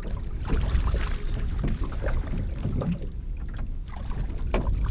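A hooked trout splashing and thrashing at the surface beside the boat as it is drawn in to the landing net, with irregular splashes over a steady low wind rumble and water lapping against the hull.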